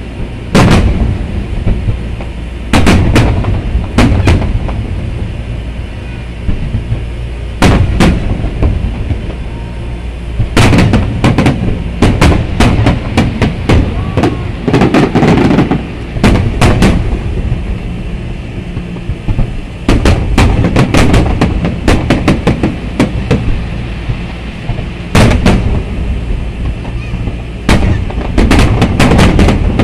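Aerial firework shells bursting in a large display: sharp bangs, some single and some in rapid clusters, over a continuous low rumble. The densest volleys come about 11 seconds in, around 20 seconds in, and near the end.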